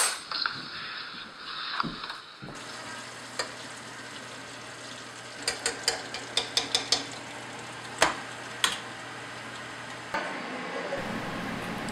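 Hot oil sizzling steadily in a CoolDaddy deep fryer, with a quick run of sharp metallic clicks and taps from tongs against the fryer basket about midway, and two louder clicks a little later.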